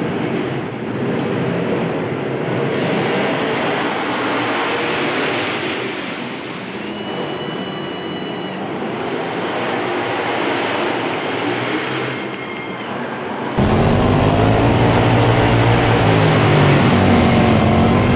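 Racing lawnmower engines running at speed on a dirt track. About 13 s in, the sound turns abruptly louder as one engine, heard close up, revs up and down.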